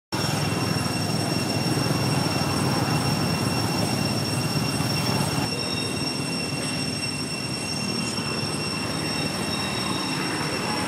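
Steady outdoor background noise: a continuous rumbling hiss with a thin, steady high-pitched whine on top.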